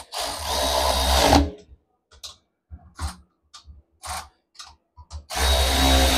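Red cordless power tool running in two bursts of just over a second each, one at the start and one near the end, tightening the nuts on a Hutchinson split rim. Short metallic clicks and clunks of the socket and nuts come between the bursts.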